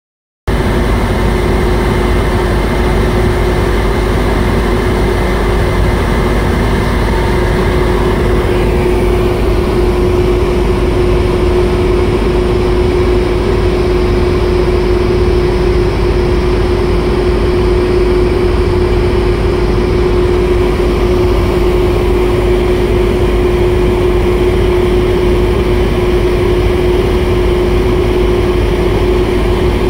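A small river tanker's diesel engine droning steadily underway, with one strong steady hum note over a rushing noise of wind and water. The higher hiss eases about eight seconds in.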